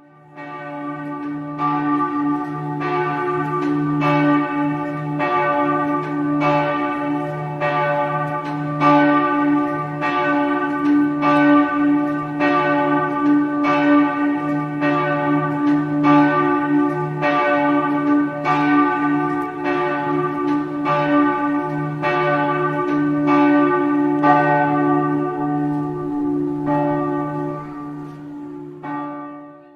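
Church bells ringing, struck over and over about one to two times a second, each strike sounding over a steady low hum that carries through. The ringing fades out near the end.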